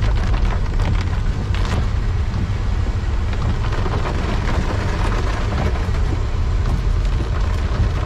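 Heavy rain beating on a car's roof and windscreen, heard from inside the cabin over the steady low rumble of the car driving on a wet road.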